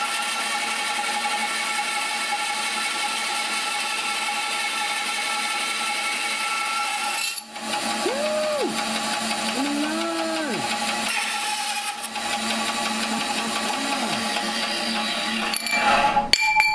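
Old Craftsman bandsaw running steadily, cutting through the cardboard casing and packed clay and black powder of an Estes C6-5 model rocket motor. A few short whining tones rise and fall partway through, and there are knocks near the end.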